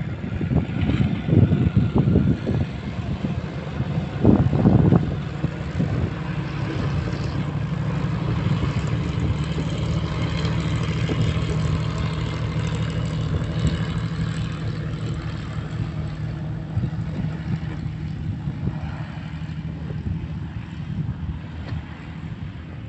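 Twin-engine piston airplane taxiing, its propeller engines running with a steady drone that slowly fades as it moves away. Irregular loud buffeting rumbles through the first five seconds.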